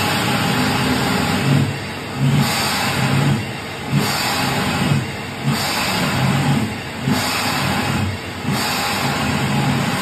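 Daikin/McQuay centrifugal chiller compressor surging: loud, continuous machine noise that swells about every one and a half seconds. Each swell is a surge cycle. The lift is too high for the impeller, so refrigerant gas briefly flows backward through it, and then the compressor rapidly starts pumping again. The surge is a fault that appeared after a rebuild.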